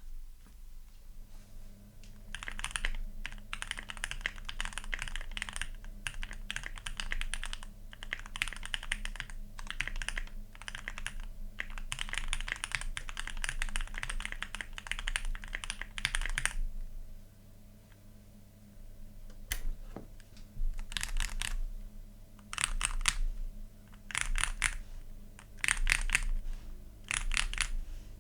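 Typing on a Keychron Q1, a pre-built gasket-mount mechanical keyboard with an aluminium case and about 3 mm of case foam. There are about fourteen seconds of fast continuous keystrokes, a pause, and then several short bursts of keystrokes.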